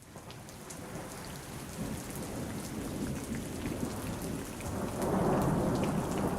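Heavy rain falling, with many individual drops ticking, fading in at the start. A low rumble of thunder swells about five seconds in.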